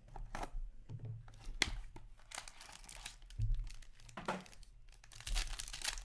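Plastic wrapping on a trading card box or pack being torn open and crinkled, with scattered crackles that thicken into dense crinkling near the end.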